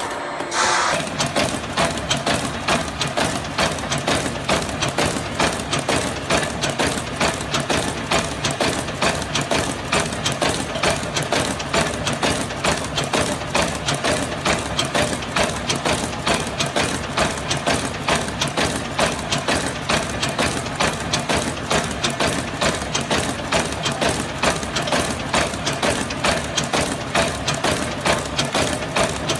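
Hexagonal wire mesh (chicken wire) weaving machine running, with a fast, evenly repeating mechanical clatter over a steady hum as it twists the wires into netting.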